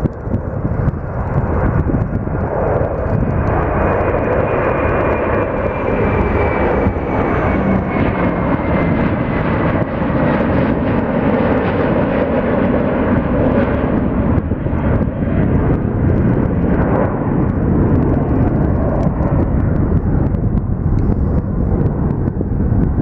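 Airbus A330 twin-engine jet airliner climbing out at takeoff power: a loud, steady jet engine noise, with a faint whine that slides down in pitch a few seconds in as the aircraft passes and then moves away.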